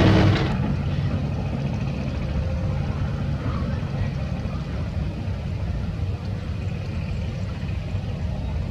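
Heavy construction machine's diesel engine running steadily at low revs. A louder working sound cuts off about half a second in.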